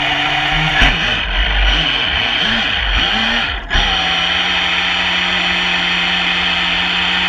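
Traxxas Spartan RC boat's brushless electric motor whining, its pitch rising and falling with the throttle for a few seconds, then held steady, over a hiss of spray and wind.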